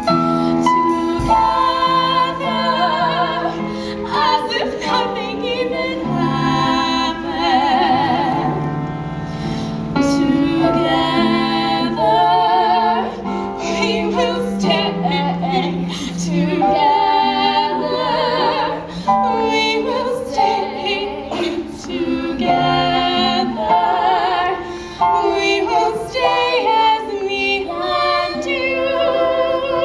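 Female voice singing a musical-theatre song with wavering vibrato on held notes, over instrumental accompaniment.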